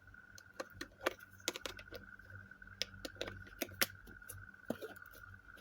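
Irregular clicks and taps of plastic parts being handled and opened while a live-streaming kit with ring light, stand and phone holder is assembled; the sharpest click is a little under four seconds in.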